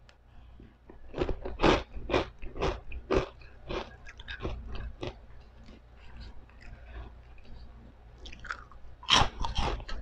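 Crunchy chewing of pork chicharon (fried pork rinds): sharp crunches about twice a second for the first few seconds, easing into quieter chewing, then another loud burst of crunches near the end.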